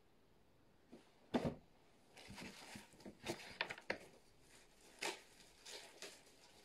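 Hands handling a new iPhone 12 Pro Max while switching it on: one sharp knock about a second and a half in, then scattered light clicks and rustles.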